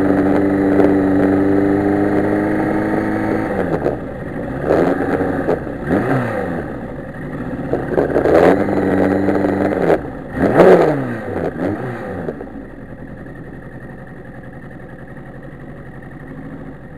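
1991 Yamaha FZR1000's inline-four engine on a slow ride: it runs steadily at first, then revs up and back down three times with the pitch swinging, and settles to a quieter idle for the last few seconds.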